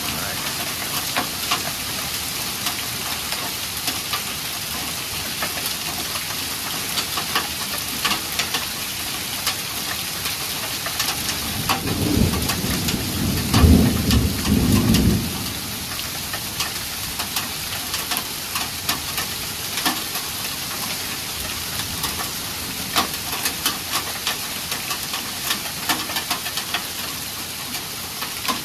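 Heavy rain with hail pouring down: a steady hiss dotted with many sharp ticks of stones and drops striking. A low rumble rises about twelve seconds in and lasts about three seconds.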